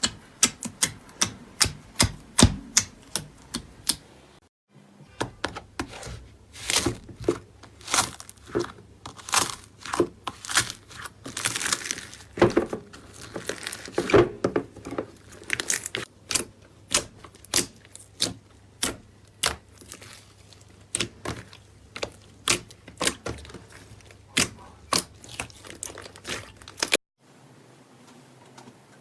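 Slime being squeezed, pressed and poked by hand, giving a quick, irregular run of sticky pops and clicks, several a second, with a short break about five seconds in.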